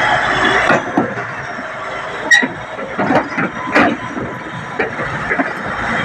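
Caterpillar D8T bulldozer's diesel engine running as its steel tracks climb onto a lowboy trailer, with sharp metallic clanks and a brief high squeal of track on the steel ramps and deck. The engine noise drops about a second in, and the clanks come in the middle of the clip.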